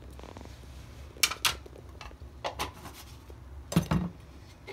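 Metal spoon clinking against a stainless steel bowl while ginger garlic paste is spooned into a chicken marinade: a few sharp clinks in pairs, the last with a duller knock.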